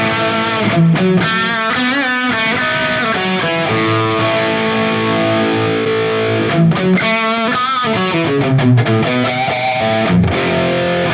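Distorted electric guitar played through a Valeton GP-200 amp modeler, a Super Overdrive model driving the UK800 amp model, playing a melodic lead line with held notes shaken by vibrato and bends.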